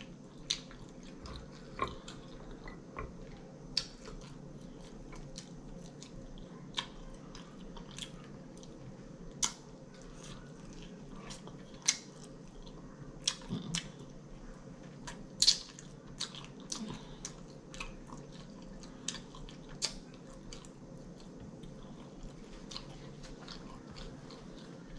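A person eating air-fried chicken close to the microphone: biting and chewing, with irregular sharp crunches and mouth clicks scattered a second or two apart over a faint steady hum.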